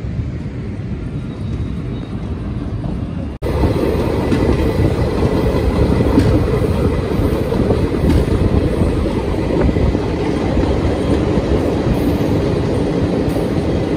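Indian passenger express train running, heard from the open door of a coach: a steady rumble of wheels on rail. There is a brief dropout about three and a half seconds in, after which the rumble is louder.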